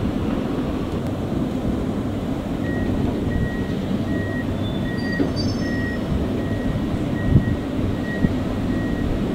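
Diesel locomotive engine running as it hauls a container train slowly through the yard. From about three seconds in, a reversing alarm beeps steadily, roughly every two-thirds of a second.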